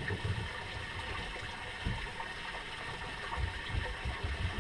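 Water lapping and gurgling against the hull of a drifting boat, with uneven low rumbling swells.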